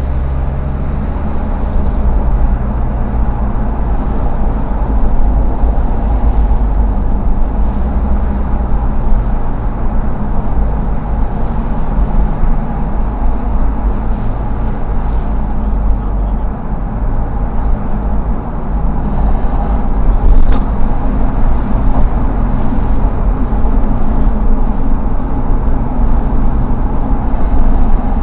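Toyota Land Cruiser Prado 150 under throttle: a high-pitched, insect-like chirping squeal and hissing (shaa-shaa, kii-kii) comes and goes in short bursts over steady road and engine noise. The noise appears only under acceleration, not when coasting, braking or revving in neutral, and it persists after new brake pads; its cause is unknown.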